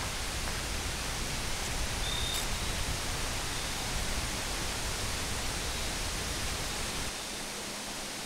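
Steady rushing of wind through the forest trees, with one brief high note about two seconds in. The deep part of the rush falls away about seven seconds in.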